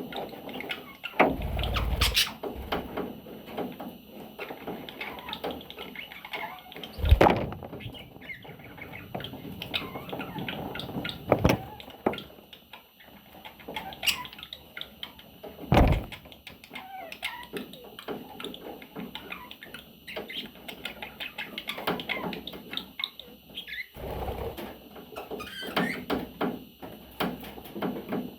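Pet budgerigar chattering with quick, busy chirps, broken by several sharp knocks or bumps. The loudest knock comes about seven seconds in.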